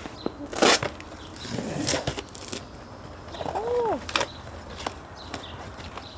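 Handling noises: rustling and a few sharp knocks, the loudest about a second in. Just before the fourth second, a short rising-then-falling voiced hum.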